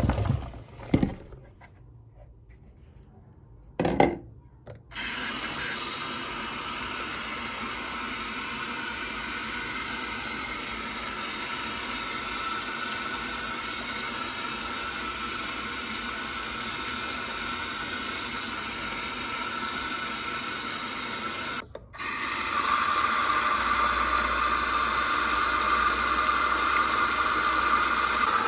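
A few sharp knocks, then a steady rush of running water. It breaks off for a moment and comes back louder.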